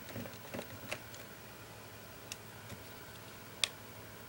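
Hitachi Hi8 camcorder being handled, giving a few scattered sharp clicks, the loudest about three and a half seconds in, as its buttons and catches are worked while it stays dead.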